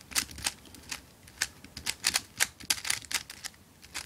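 Plastic clacking of a non-ridged Dayan Megaminx as its faces are turned quickly, many sharp clicks a second in uneven runs with a short lull near the end.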